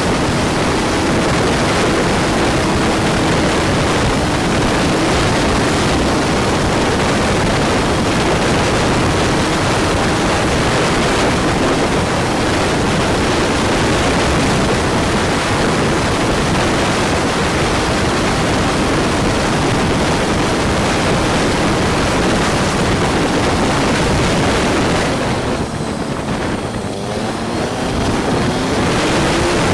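Wind rushing over the microphone of a camera clipped to a moving Honda CG125 motorcycle, with its single-cylinder four-stroke engine running faintly underneath. About three-quarters of the way through, the wind noise drops for a few seconds and the engine note is heard rising and falling before the rush returns.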